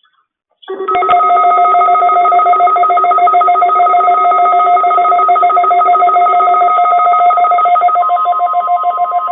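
Loud electronic alert tone: several steady pitches pulsing rapidly in a ringing trill, much like a telephone ring. It starts under a second in and holds for about eight seconds before cutting off abruptly.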